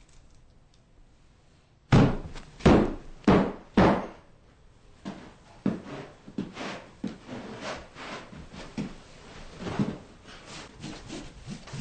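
A man's heavy footfalls on a floor: four loud thuds about half a second apart starting about two seconds in, then a run of softer, irregular knocks and thumps.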